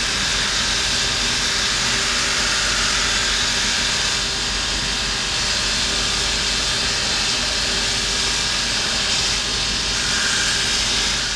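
Shoe-repair finishing machine running steadily, with the edge of a new leather sandal sole held against its spinning wheels to trim it even all round.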